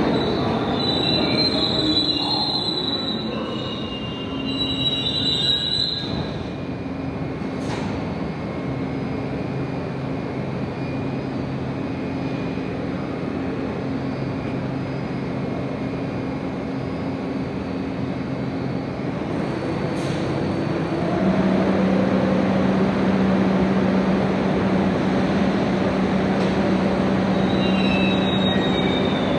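New York City subway train running, its wheels squealing high on the rails for the first several seconds and again near the end. In between is steady rumbling running noise with a low motor hum, which grows louder about two-thirds of the way through.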